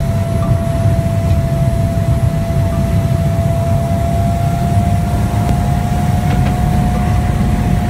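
Ski plane's engine and propeller running loud, heard from inside the cabin, with a deep steady drone and a steady whine that creeps slightly up in pitch.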